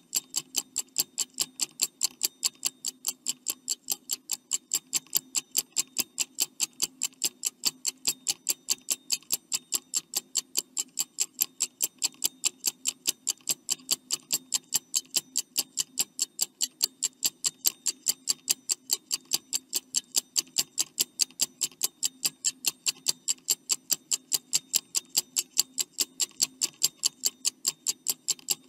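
Stopwatch ticking sound effect: fast, even ticks counting down the answer time, over a faint steady low hum.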